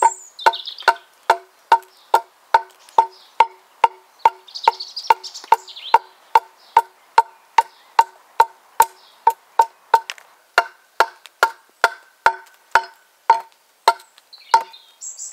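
T-shaped hewing axe with a steel bit chopping down the edge of a split ash plank. The blows come evenly, about two a second, and each gives a sharp knock that rings briefly with a wooden tone.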